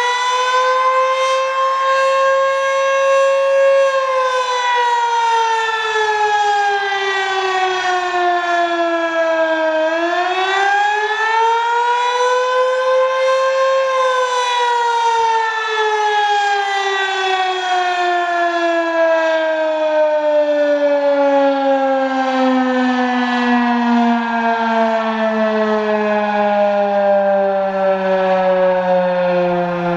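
Fedelcode Model 20 outdoor warning siren sounding during a test. Its pitch rises for the first few seconds, falls, rises again about ten seconds in, then falls slowly and steadily through the rest.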